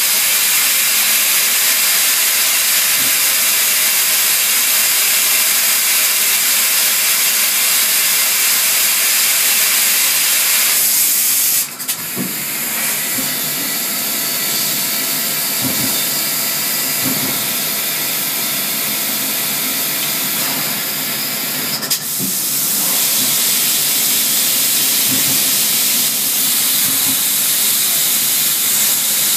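CNC lathe cutting with flood coolant: a steady, loud hiss of coolant spraying onto the spinning workpiece. The hiss drops off suddenly about twelve seconds in, with a few soft knocks while it is lower, and comes back to full strength about twenty-two seconds in.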